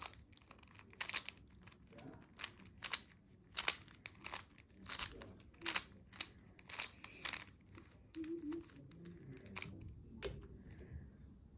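Rubik's cube being scrambled by hand: a run of irregular plastic clicks and clacks as its faces are turned, about two a second, stopping about a second before the end.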